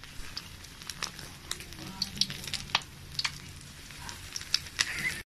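Breaded corned beef, cheese and pineapple bread rolls deep-frying in hot oil in a steel wok: a steady sizzle with frequent sharp crackles and pops. The sound cuts off suddenly near the end.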